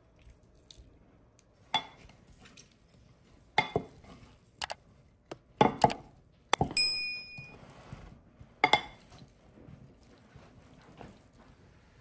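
A kitchen utensil clinking and knocking against a glass bowl while a salad is mixed: several separate sharp strikes. One strike about six and a half seconds in leaves the glass ringing for about a second.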